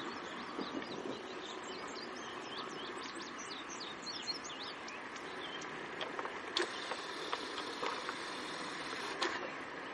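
Steady sound of a Norfolk & Western No. 475 steam train rolling away. Birds chirp in quick short notes a few seconds in, and two sharp clicks come later.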